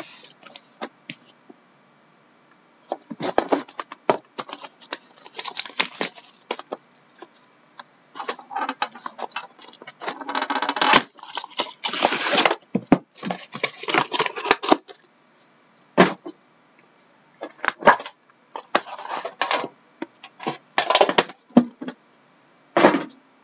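Plastic shrink wrap and cardboard packaging of a sealed trading-card box being torn open and handled: irregular crinkling and crackling bursts with sharp clicks and short pauses.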